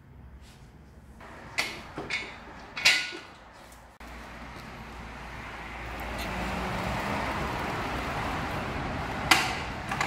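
Three sharp knocks and clanks from hands-on work at the front end of a BMW S1000RR sport bike, then steady outdoor background noise that slowly grows louder, with one sharp click near the end.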